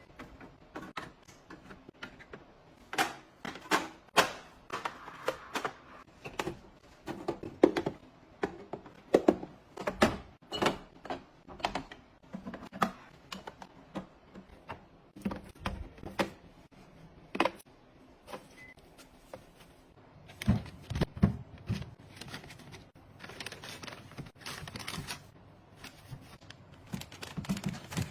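Objects being handled and set down one after another: an irregular series of clicks, taps and thunks, with a few heavier thuds about two-thirds of the way through.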